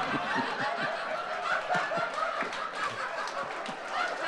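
Audience laughing, many voices at once with snickers and chuckles mixed in.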